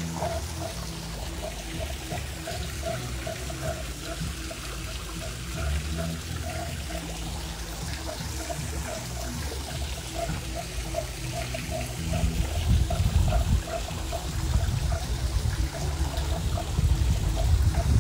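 Steady pouring and splashing of water into a backyard swimming pool from its water feature, with a low rumble that grows louder in the last six seconds.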